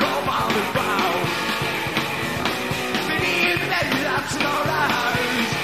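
A rock and roll band playing live, with a steady drum beat under dense band sound.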